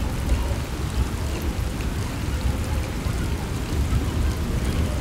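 Steady rain in a thunderstorm, with a continuous low rumble underneath.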